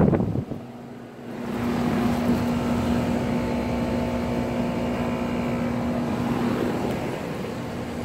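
Rheem 3-ton central air conditioner's outdoor condenser unit running: a loud rush of fan air fades in the first half second, then a steady hum holds at an even level.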